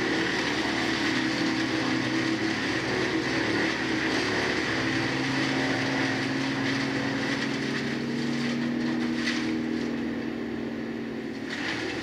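Bandit Intimidator 15XP drum wood chipper running steadily while chipping dead limbs and leaves: a constant engine drone under a broad rush of chipping noise, easing slightly near the end.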